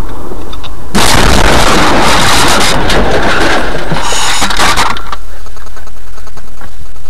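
Head-on collision between a car and an oncoming truck, heard through the car's dashcam microphone. About a second in comes a sudden loud crash, with crunching and clattering impacts for about four seconds, then quieter scattered knocks and rattles.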